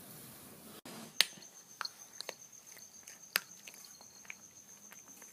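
A cricket chirring: a steady, high, finely pulsed trill that starts about a second in. A few sharp clicks or taps sound through it, the loudest about a second in and again past three seconds.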